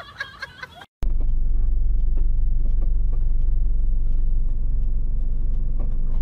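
Faint voices, then after a short break a steady low rumble of a car's engine and road noise, heard from inside the moving car.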